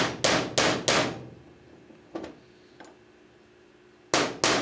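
Hammer striking a steel punch to knock the mainspring out of an FIE E15 .22 revolver frame: three sharp metallic blows in quick succession in the first second, two light taps, then two more blows near the end.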